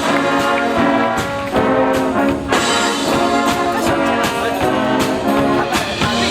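High school wind band playing a brass-led piece: trombones and trumpets carry chords and a melody, with sharp percussion hits marking the beat.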